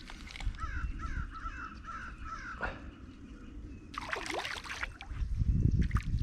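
A bird calling in a quick run of about eight short, repeated notes over the first three seconds. A brief sharp rustle comes about four seconds in, and low rumbling handling or water noise follows near the end.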